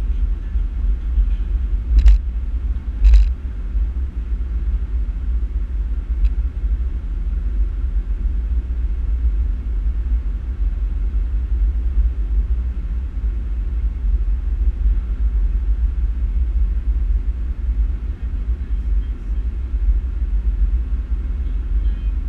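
Steady low rumble of a car driving at highway speed, heard from inside the cabin through a dashboard-mounted camera: road, tyre and engine noise. About two seconds in there are two sharp knocks, a second apart.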